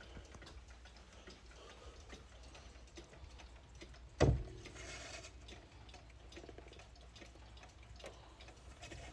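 Hamilton Headmaster pendulum wall clock ticking faintly, with a single sharp knock about four seconds in as the clock's dial is opened by hand.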